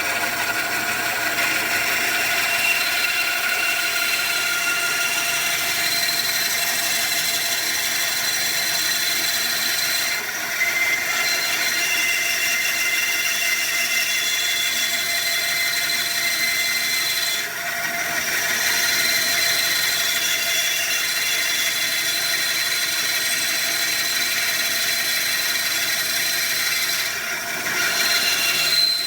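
Electric power saw running steadily while sawing through a giant jawbreaker of hard candy, dipping briefly in level three times.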